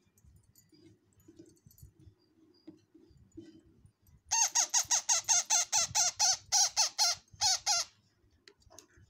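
Parrot chick begging to be fed: a rapid string of short, high squawking calls, about five a second, starting about four seconds in and lasting some three and a half seconds. Faint handling rustles come before it.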